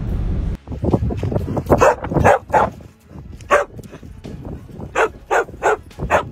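A dog barking, about nine short sharp barks in two bunches with a pause between them. A low steady rumble cuts off suddenly just before the barking starts.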